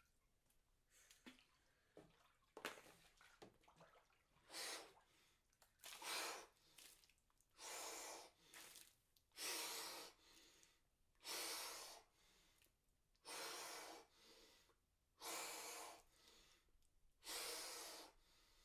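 A man breathing hard and steadily while sitting in a cold-plunge stock tank of near-freezing water, a loud forceful breath about every two seconds, the deliberate breathing of cold-water immersion. Before it, faint knocks and water sounds as he lowers himself in.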